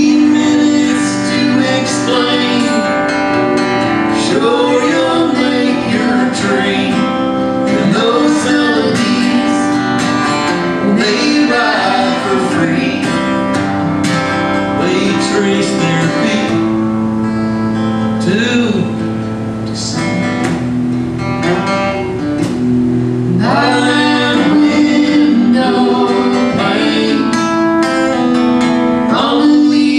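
Live acoustic folk duet: a steadily strummed acoustic guitar with a man and a woman singing over it.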